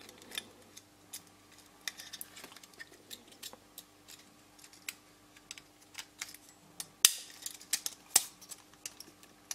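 Scattered small clicks and taps of a Märklin H0 model tank wagon's plastic body and metal chassis being handled and pressed shut, with two sharper clicks near the end.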